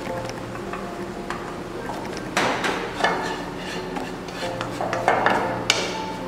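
Wooden spoon stirring and scraping flour into butter and onion in a nonstick frying pan while the roux cooks, with sharper knocks and scrapes of the spoon against the pan about halfway through and again near the end. Soft background music underneath.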